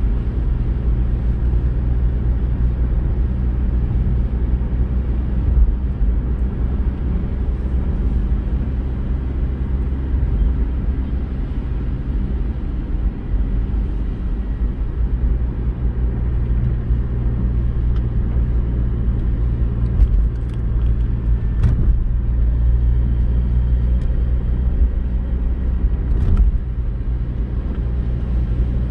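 Steady low rumble of a car driving on a wet road, heard from inside the cabin: engine and tyre noise. Now and then a short sharp tap, a few of them in the second half.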